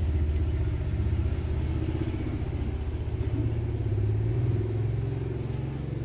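A motor vehicle engine running, a low pulsing rumble that rises in pitch about four seconds in.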